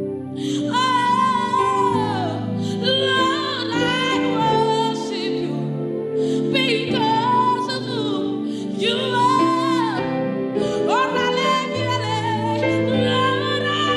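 Worship music: a singer holding long notes that slide up and down over sustained low chords.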